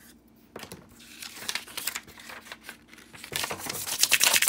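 Plastic backing sheet of a rub-on decor transfer crinkling as it is handled, then being rubbed down hard by fingers to burnish the transfer onto the surface. The rubbing starts about three seconds in as a dense scratchy rasp and is loudest near the end.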